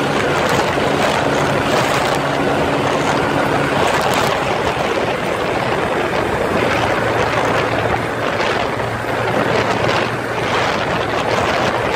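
Kawasaki Rouser 135 LS single-cylinder engine running at speed, mostly buried under loud wind rushing over the microphone. The engine's hum drops out about four seconds in and comes back lower in pitch from about seven seconds.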